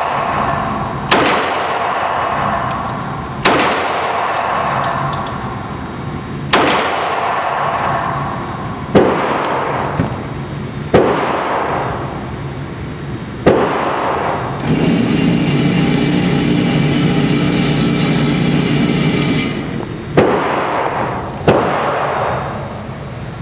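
Gunshots at a shooting range: about eight shots spaced one to three seconds apart, each followed by an echoing tail. A steady louder noise runs for about five seconds between the sixth and seventh shots.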